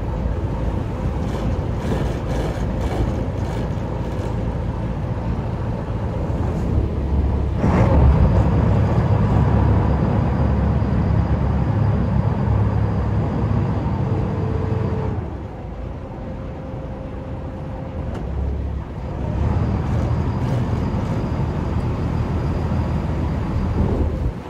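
Vintage work boat's inboard engine running as the boat is manoeuvred away from the dock. It gets louder about 7 seconds in, eases off about 15 seconds in as the throttle comes back, and picks up again about 19 seconds in.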